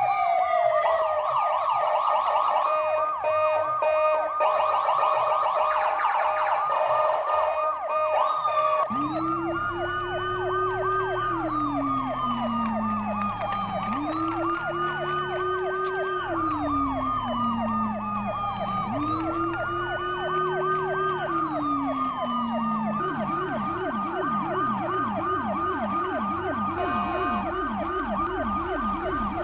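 Electronic toy siren sounds, several playing at once from battery-powered light-up toy trucks: a fast warbling siren runs throughout, joined about nine seconds in by a slower wail that rises and falls three times, and near the end by a quick, lower-pitched yelp.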